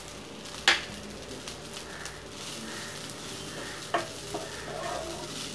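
Wooden spatula stirring crumbled idli upma in a non-stick pan over a low sizzle of hot oil, with one sharp knock against the pan about 0.7 seconds in and a couple of lighter knocks near the 4-second mark.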